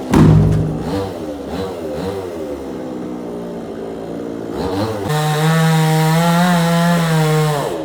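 Chainsaw engine running, its speed rising and falling for the first few seconds, then held steady at high revs before dropping off near the end. A loud knock comes right at the start.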